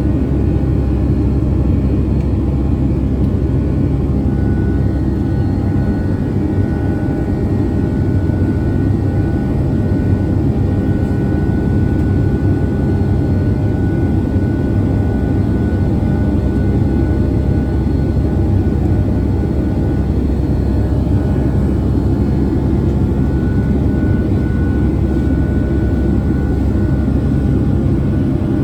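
Steady jet engine and airflow noise heard inside the cabin of a Boeing 757-200 in flight, a constant deep rush with faint steady whining tones over it.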